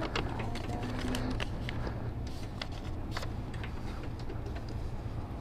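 Scattered light clicks and taps of lottery tickets being handled at a shop counter, over a steady low hum.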